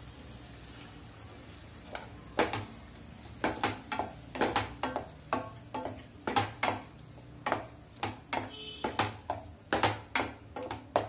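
Water poured into a hot pan of roasted broken wheat (dalia) sizzles softly, then a wooden spatula stirs and scrapes the mixture against the pan in quick, irregular strokes from about two seconds in.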